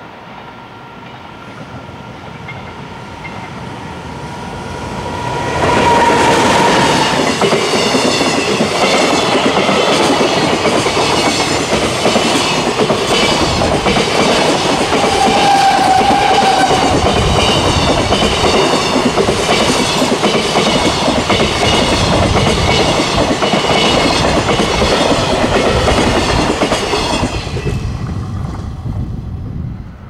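Electric-locomotive-hauled container freight train approaching and passing close by, its wagon wheels clattering rhythmically over the rail joints. Two brief high tones come through, about six seconds in and near the middle. The sound builds over the first few seconds, stays loud through the passing wagons, and fades near the end.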